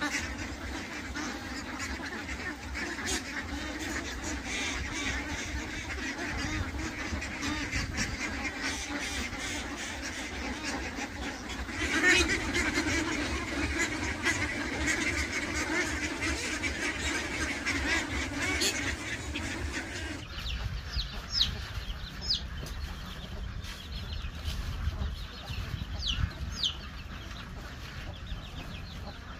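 A large flock of ducks quacking together in a dense, continuous chorus that swells louder about twelve seconds in. About twenty seconds in it cuts to a quieter scene with scattered short, high chirps.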